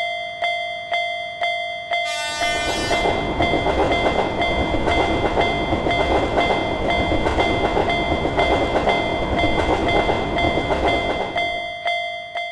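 Japanese railroad crossing alarm bell ringing about twice a second. About two seconds in a train horn sounds briefly. A freight train then runs past with loud rushing and rattling noise for about nine seconds while the bell keeps ringing, and the train noise stops shortly before the end.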